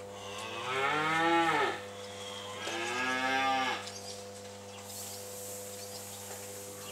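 Holstein calves mooing: two long calls, the first about a second and a half long that rises and then falls in pitch, the second shorter, starting about a second later. A steady hum runs underneath.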